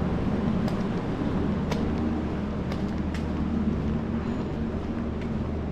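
Steady low mechanical hum, with a few light clicks and taps over it.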